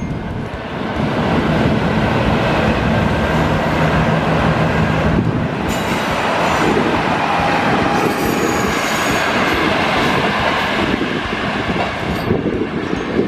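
A Hohi Line diesel railcar pulling out of the station, its engine working under power and its wheels running on the rails, getting louder about a second in as it accelerates.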